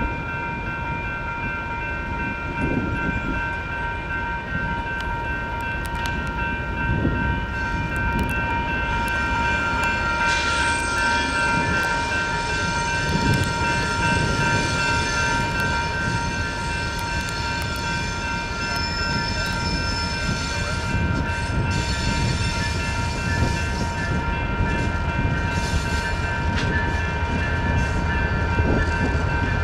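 Railroad crossing warning bell, a Safetran Type 2 electronic bell, ringing steadily as the crossing activates. A second, higher set of bell tones joins about ten seconds in, and a low rumble builds near the end.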